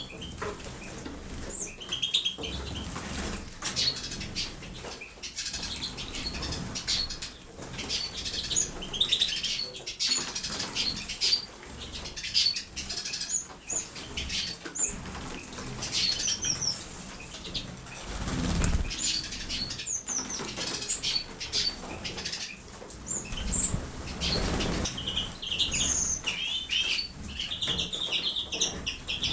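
Small pet birds bathing: repeated wing flutters and splashing in water, with short high chirps throughout, and one louder dull thud about two-thirds of the way in.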